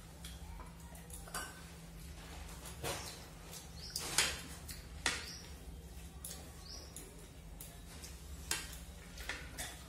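Eating rice by hand from plates: scattered light clinks and taps of fingers on the plates, the loudest about four seconds in, with soft eating noises, over a steady low hum.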